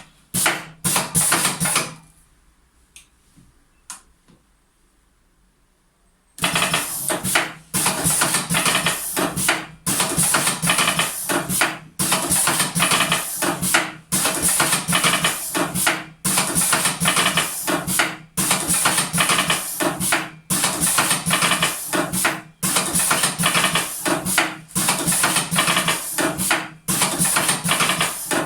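Venus MK 42 steel cigarette rolling machine running: a fast metallic clatter that repeats in cycles about every two seconds. It starts about six seconds in, after a short burst of clatter and a few light clicks.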